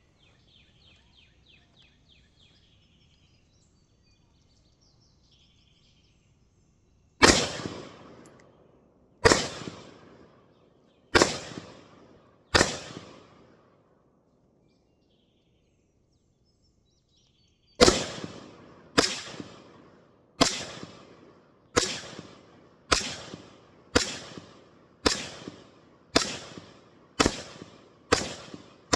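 Gunshots from a short-barrelled AR-15 with a 7.5-inch barrel, in 5.56/.223, each shot ringing out and trailing away. Four shots about two seconds apart come first. After a pause of several seconds, a steady string of about ten follows at roughly one shot a second.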